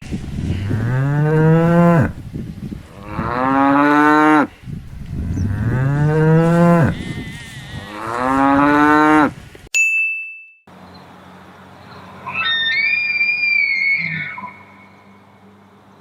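Cow mooing four times, each a long, low call rising in pitch. A short chime rings about ten seconds in, then a quieter, high whistle-like call follows.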